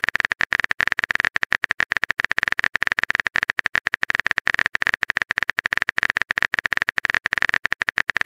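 Phone keyboard typing sound effect: rapid, uneven clicks, several a second.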